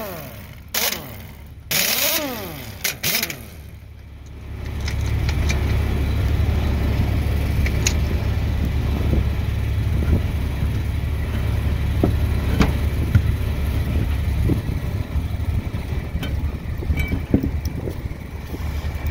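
Heavy pneumatic impact wrench hammering lug nuts off a truck's bud wheel in several short bursts over the first few seconds. About four seconds in an engine starts and runs steadily underneath, with occasional metal clanks as the wheel is worked off the studs.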